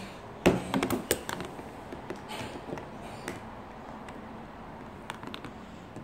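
Hard plastic clicks and knocks as a Thomas and Friends playwheel toy is handled and its plastic pieces fitted together. A quick cluster of sharp knocks comes about half a second in, then scattered lighter clicks.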